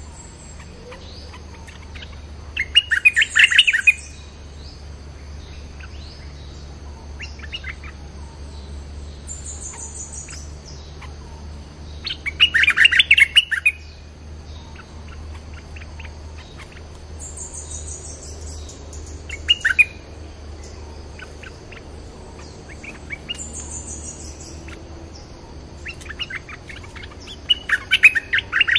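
Stripe-throated bulbuls calling: loud bursts of quick chattering, bubbly notes about a second or two long, four times, with quieter single notes between.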